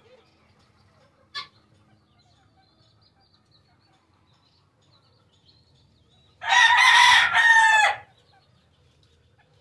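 A loud, drawn-out bird call about six and a half seconds in, lasting about a second and a half, with a short faint chirp a little after the start; otherwise quiet background.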